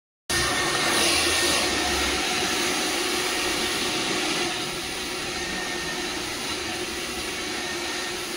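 Handheld hair dryer blowing steadily at close range, starting abruptly just after the start and getting slightly quieter in the second half.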